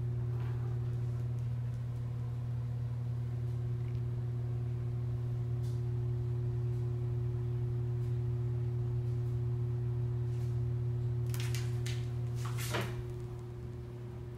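A steady low mechanical hum, with a few fainter steady tones above it and no break. Near the end there are a few sharp clicks, the loudest about two seconds before the end.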